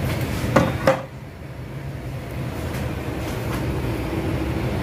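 A steel cooking pot of water set down on a stove's burner grate: two metal clanks close together, the second ringing briefly, followed by a steady low hum.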